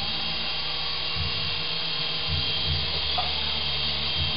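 Syma S108G toy coaxial RC helicopter hovering: its small electric motors give a steady high whine over the whir of the rotor blades, which swells and fades every second or so as the throttle is worked.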